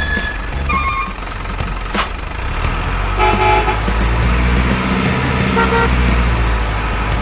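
Truck sounds: a heavy truck engine running steadily with three short horn toots, about one, three and five and a half seconds in, and one sharp click about two seconds in.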